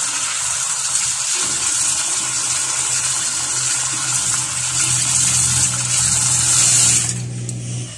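Tap water gushing from a kitchen faucet into a stainless steel sink as an adenium's roots and caudex are rinsed under it by hand, a steady hiss with a low steady hum underneath. The water sound stops about seven seconds in.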